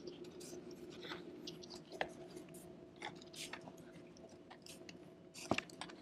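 Faint clicks, taps and rustles of fingers working the display data cable's plug into its socket on an iMac's logic board, with a sharper click about two seconds in and a few more near the end.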